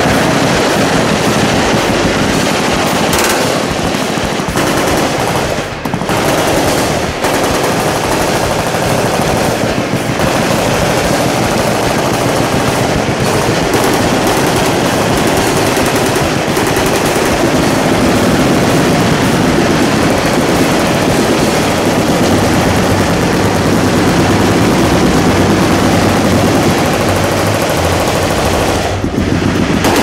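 Massed machine-gun fire: many automatic weapons firing at once, their bursts overlapping into a dense, unbroken rattle with a few short lulls in the first ten seconds.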